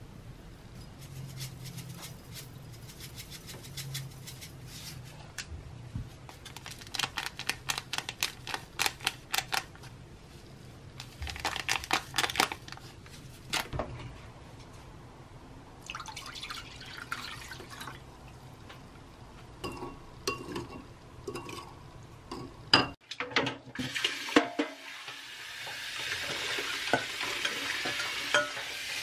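A metal spoon stirring and clinking against a bowl in several runs of rapid clicks while a sauce is mixed. Near the end there are two sharp knocks, then a kitchen tap runs steadily onto a stainless steel saucepan.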